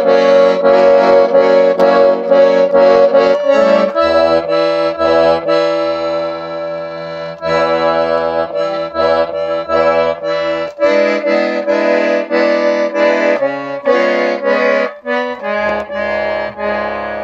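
A Lyubitelskaya garmon (Russian button accordion) playing a tune with chords, with left-hand bass notes coming in about four seconds in. The instrument is badly out of tune and leaks air, in the poor state it is in before repair.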